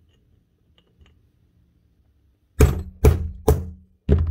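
Hammer striking a punch to drive the pressed-in steel piston pin out of a Hitachi CN16SA nibbler's conrod: four sharp metallic knocks about half a second apart, starting about two and a half seconds in, each with a short ring.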